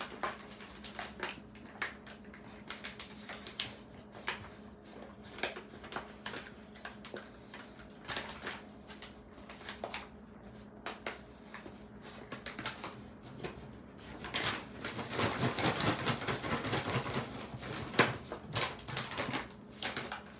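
Paper bags being handled: rustling and crinkling with scattered light clicks and taps, busiest about two-thirds of the way through, over a low steady hum.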